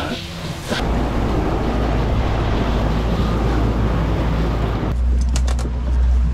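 Hose nozzle spraying water onto a boat deck over the steady low hum of the boat's engine running under way. The spray stops about five seconds in, leaving the engine hum and a few light clicks.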